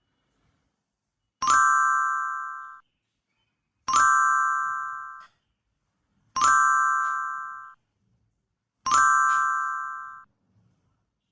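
A bell-like chime struck four times, evenly spaced about two and a half seconds apart, each note ringing and fading out over about a second.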